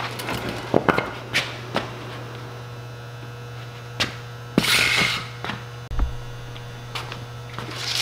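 Steady low electrical hum, with scattered knocks and a short scuffing rush just past halfway: footsteps and small handling noises on a concrete shop floor. A low thump comes near the end.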